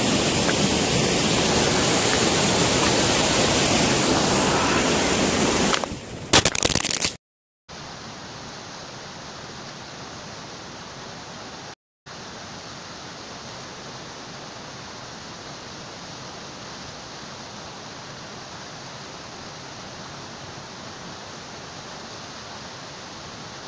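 Rushing water of a rocky stream, loud and close for about seven seconds. Then, after a cut, the same steady rush is much fainter and further off.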